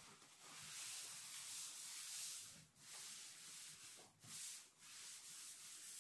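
Paper towel and gloved hands rubbing a puppy's fur, a soft papery rustle in long stretches with short breaks about a third and two thirds of the way through.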